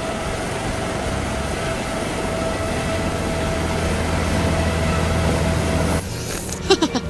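Propeller airliner engines running with a steady drone and a held whine, growing slightly louder, then cutting off suddenly about six seconds in. A few brief gliding sounds follow near the end.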